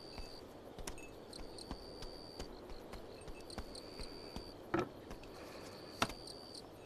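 Crickets chirping in a quiet night ambience. About five seconds in there is a soft rustle, and about six seconds in a single light knock as a rolled scroll is set down on a table.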